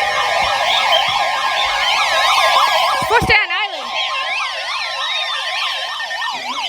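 Several electronic sirens sounding at once: fast up-and-down yelps overlapping with slower falling wails. There is a brief sharp clash about three seconds in.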